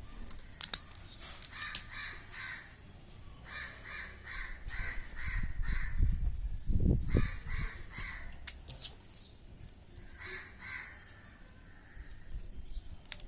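Crows cawing in several runs of quick repeated calls, with a few sharp clicks in between.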